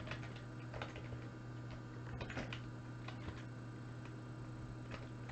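Scattered clicks of a computer keyboard and mouse while names are typed and pasted into a list, over a steady low hum.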